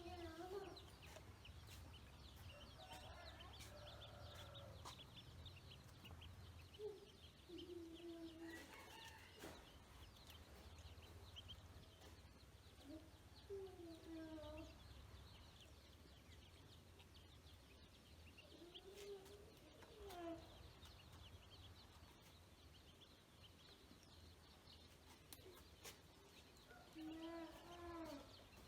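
Faint poultry calls: short low calls every few seconds over continuous high peeping of ducklings, with a steady low hum underneath.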